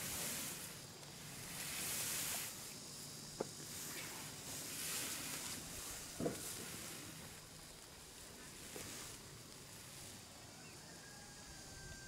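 Black plastic shade netting rustling in swelling waves as it is dragged over a bamboo pole frame, with two sharp clicks in the middle.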